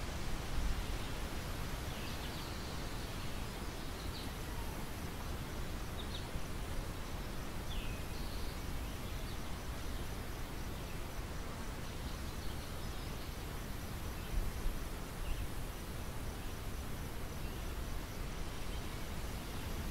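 Outdoor field ambience: a steady rush of wind noise with a few short bird chirps scattered through it, and a faint, high, pulsing insect trill.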